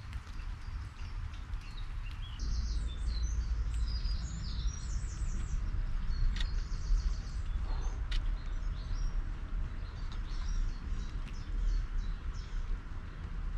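Small songbirds chirping in quick repeated twittering phrases over a steady low rumble and hiss. Two sharp clicks come in the middle.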